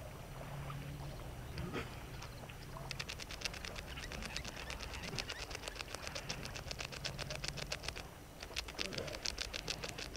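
A wild animal's fast, even rattling trill, many clicks a second, starts about three seconds in and keeps going, over a low steady hum.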